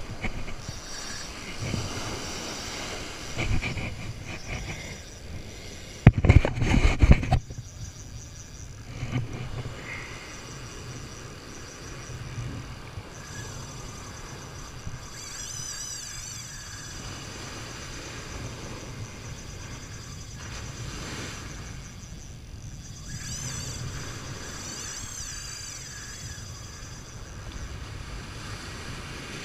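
Ocean surf washing on a beach, with wind on the microphone and a loud rumbling blast about six seconds in, lasting over a second.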